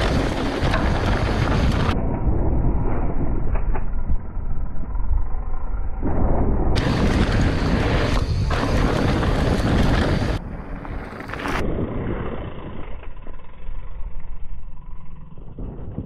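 Mountain bike riding noise: wind buffeting the camera's microphone and knobby tyres rolling and rattling over rocky desert dirt. The noise drops noticeably about ten seconds in.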